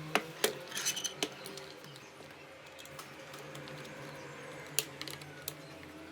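Small metal parts clinking and clicking against each other: a quick cluster of clinks in the first second or so, then a few more about five seconds in.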